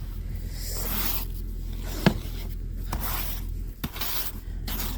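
Snow brush scraping icy, crusted snow off a car in repeated strokes, about one a second, with a sharp knock about two seconds in.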